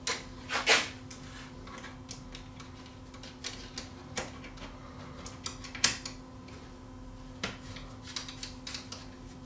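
Hand screwdriver turning screws into a Panasonic PV4250 VCR's metal chassis: scattered clicks and light scrapes of metal on metal, a second or more apart, the loudest near the start, over a faint steady hum.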